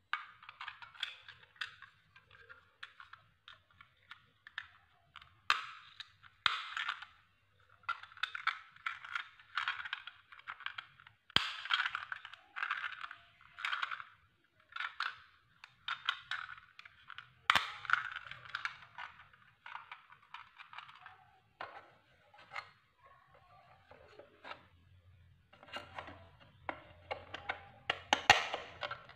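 Plastic toy truck parts being handled and fitted together: irregular clicking and rattling as wheel-and-axle sets are pressed into the chassis, with several sharp snaps.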